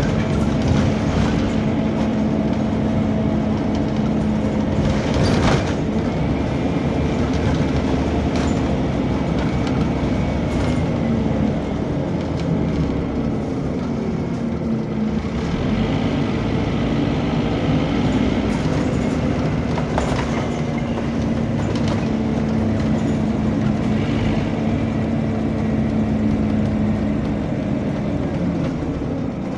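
Scania bus's engine cooling fan and engine running, a loud steady drone heard inside the lower-deck cabin while the bus is moving. The drone eases for a few seconds mid-way and again near the end, with occasional rattles from the bodywork.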